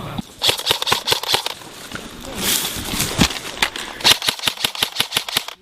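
Airsoft guns firing in short rapid bursts of sharp snaps, about eight a second at times, with a brief hiss about halfway through.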